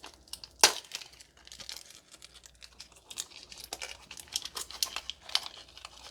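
Plastic slime container being opened and handled: irregular crinkling and small clicks, with one sharp click a little under a second in.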